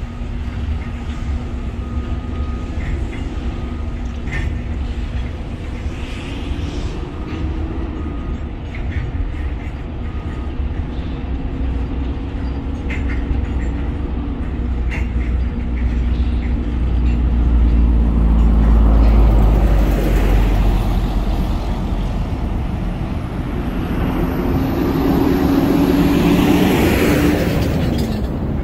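A diesel engine running, its pitch rising and falling, over a heavy low rumble. The sound grows louder twice in the second half.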